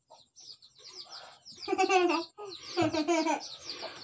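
Birds chirping, a quick run of short, high, falling chirps, with two louder, lower calls about two and three seconds in.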